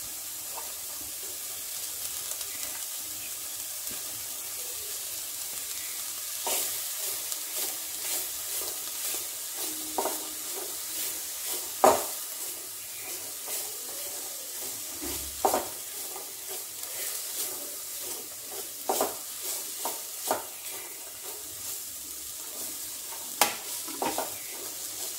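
Chicken and chopped vegetables sizzling in a little oil in a pan on a gas stove, stirred with a spatula. From about six seconds in, the spatula knocks and scrapes against the pan every second or so, loudest about halfway and near the end.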